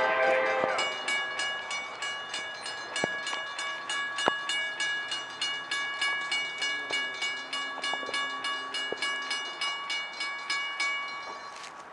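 Railroad grade-crossing bell ringing in quick, even strokes, about three to four a second, then stopping near the end. The tail of a locomotive horn blast fades out in the first second.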